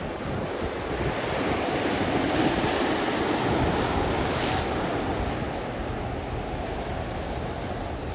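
Sea surf: waves breaking and washing in over rocks and sand in a steady rush. It swells about a second in and eases off after about five seconds.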